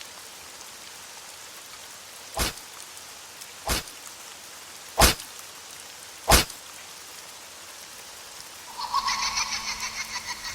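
Steady rain hiss broken by four loud, sharp bangs about a second and a quarter apart. Near the end a buzzy, pulsing high-pitched tone comes in over the rain.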